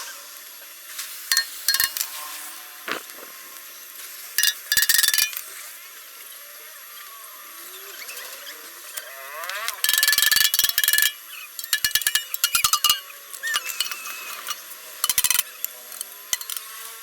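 Metal clinking and tapping on a motorcycle muffler and its steel-sheet patch, in several short bursts of quick strikes, the longest about ten seconds in, over a faint steady hiss.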